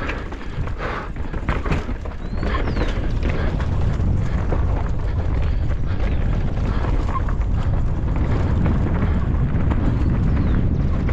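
Downhill mountain bike running fast over a rough dirt trail, heard from a camera on the rider. Short knocks and rattles of tyres and bike over rocks come first. About two seconds in, as speed picks up, a steady loud noise of wind and tyres takes over.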